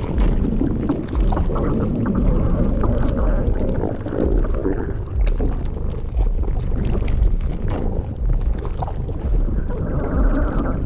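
A person's stomach growling: a loud, deep rumbling and gurgling that goes on without a break.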